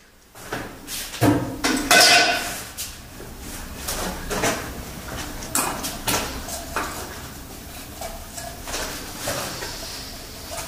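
Irregular knocks, clicks and light clatter of hands handling objects at a wall opening above a sink, loudest in a cluster about two seconds in.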